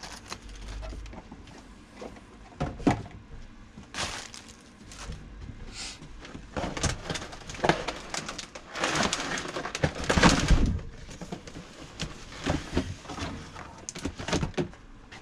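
Cardboard packaging and plastic wrapping being handled as a car stereo's screen is taken out of its box: irregular rustling, scraping and light knocks, busiest and loudest about nine to ten seconds in.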